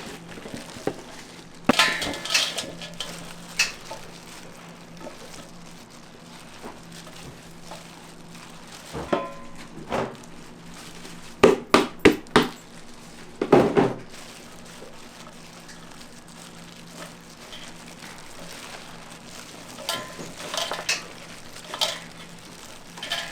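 Kitchen utensils knocking and clinking on cookware in short scattered clusters during food preparation, over a faint steady low hum.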